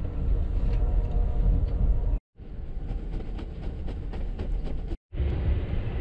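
Amtrak Auto Train passenger car rolling along the track, heard from inside the car: a steady low rumble of wheels on rail, with a run of quick clicks in the middle. The sound cuts out briefly twice where short clips are joined.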